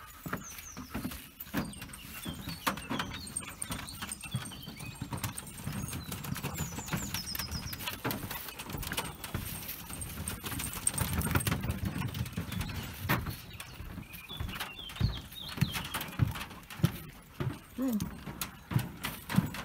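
Footsteps of a person and dogs on a wooden boardwalk: an irregular run of knocks on the timber planks. A few short bird chirps come through now and then.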